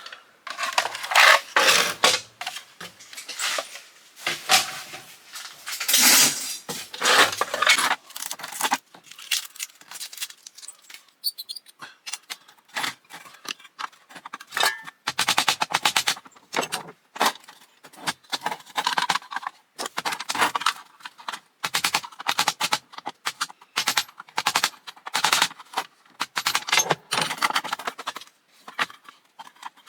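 An old Square D fuse box being taken apart by hand: a steady run of sharp metallic clicks, clanks and scrapes from tools, screws and small metal parts.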